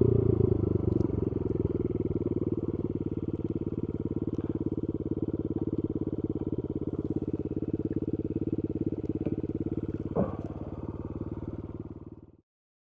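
Honda Monkey Z50J's small four-stroke single-cylinder engine idling with a steady, rapid putter. A brief clunk about ten seconds in, then the sound fades out near the end.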